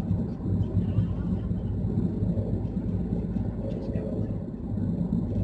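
Car engine and tyre noise heard from inside the cabin while cruising on a highway: a steady low drone.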